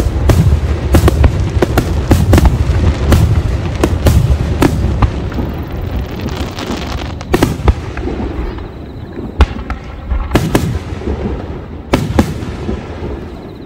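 Aerial firework shells bursting, a rapid string of sharp bangs over a deep rumble that thins after about five seconds into a few single bangs, with a brief crackle of sparkling stars around six to seven seconds.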